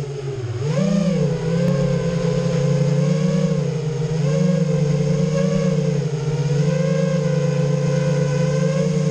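Electric motors and propellers of a flying FPV drone, heard from its onboard camera: a steady motor whine that rises briefly in pitch about a second in, then wavers slightly as the throttle shifts.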